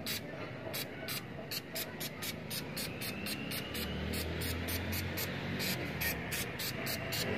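Aerosol can of flexible rubber coating spraying onto a corrugated metal roof with a hiss, heard over a rapid, even high-pitched pulsing of about five beats a second.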